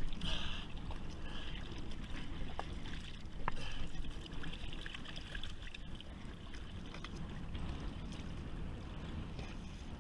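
Water trickling and lapping with a low steady rumble and scattered small clicks and knocks.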